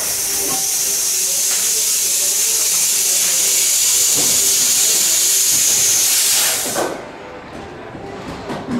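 A loud, steady hiss, like air escaping under pressure, that starts abruptly and cuts off about seven seconds in.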